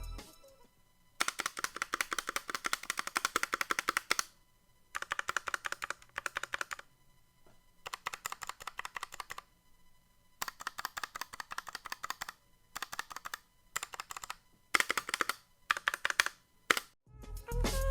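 Typing on a mechanical keyboard: runs of rapid keystrokes lasting a second or few, broken by short pauses.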